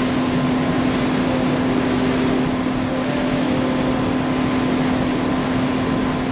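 Boat engine running steadily with a constant low hum, over a steady rushing noise.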